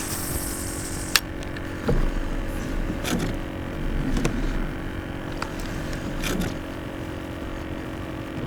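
Rod, reel and tackle being worked from a fishing kayak: a few sharp clicks and light knocks over a steady low hum, with a brief hiss in the first second.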